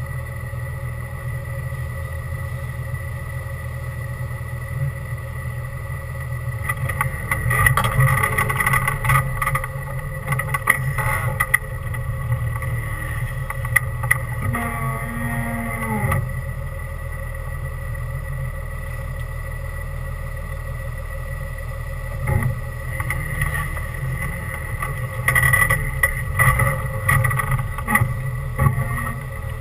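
Off-road rig's engine running at low trail speed, heard from inside the open cab, with bursts of knocks and rattles about a quarter of the way in and again near the end as it crawls over rough ground.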